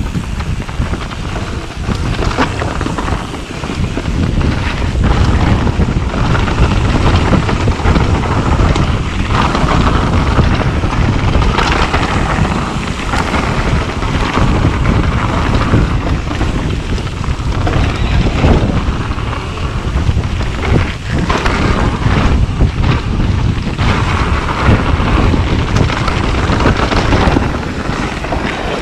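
Riding noise of a mountain bike descending a rocky dirt trail: heavy wind buffeting on the action camera's microphone, with tyres crunching over gravel and frequent sharp knocks and rattles as the bike hits rocks and roots.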